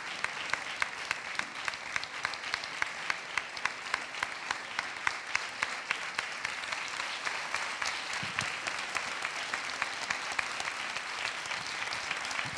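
Audience applauding. One close pair of hands claps at an even pace of about three claps a second and stands out over the general applause for the first half or so, then blends into it.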